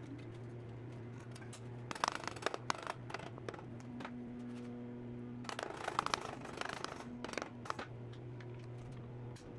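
Exhaust header springs being stretched and hooked onto the pipe joints with a spring-puller tool: two bouts of metallic clicks and scraping, the first about two seconds in and the second around the middle, over a steady low hum.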